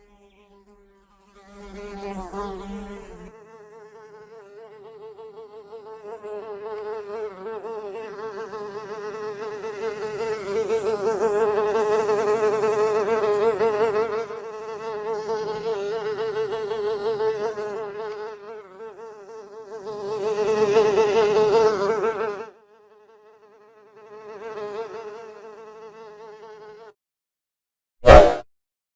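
A fly buzzing in flight, a steady buzz with a slightly wavering pitch that swells louder and fades again as it moves around. It breaks off briefly a couple of times and stops. Near the end there is one short, loud crack.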